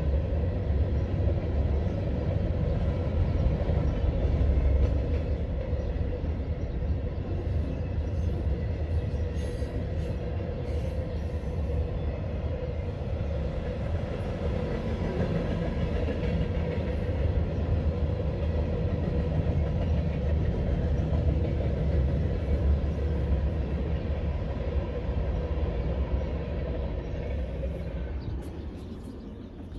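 Freight train cars, including covered hoppers, rolling past with a steady low rumble of steel wheels on the rails. The sound fades away near the end as the train moves off.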